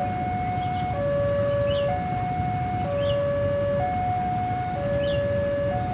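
Railway level-crossing alarm sounding a two-tone hi-lo siren, the higher and lower notes alternating about once a second, over the low rumble of waiting traffic.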